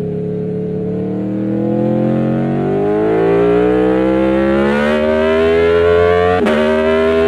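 Aprilia Tuono V4 1100's V4 engine accelerating in gear, its note climbing steadily in pitch. Near the end there is a quick upshift: a short sharp break and a small drop in pitch before it climbs again.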